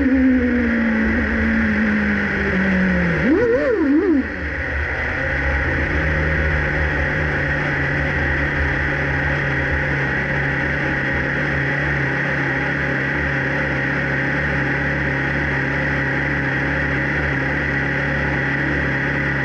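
Formula 1 car engine coming down in revs as it slows, blipped twice in quick succession about three and a half seconds in, then idling steadily.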